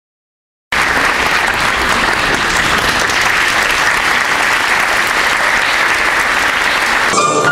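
Theatre audience applauding, cutting in suddenly from silence about a second in; music begins just before the end.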